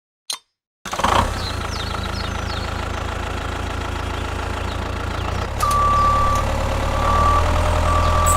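A vehicle engine running steadily, starting abruptly about a second in and getting louder in the second half, with a high beep sounding three times near the end.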